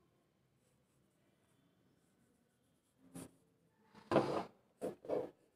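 Pencil scratching on drawing paper: near silence, then a few short, quick strokes from about three seconds in, sketching grass blades, the loudest just after four seconds.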